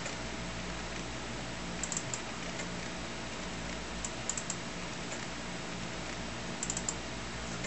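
Computer mouse button clicked in three quick groups, double-clicks that open Amiga Workbench drawer windows, over a steady low hum.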